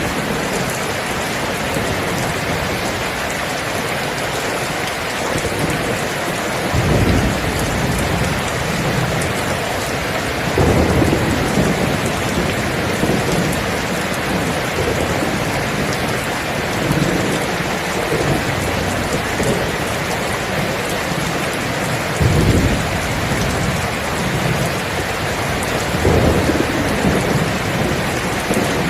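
Steady heavy rain, with low rolls of thunder rumbling up several times: about 7 seconds in, around 10 seconds in, again near 22 seconds, and near the end.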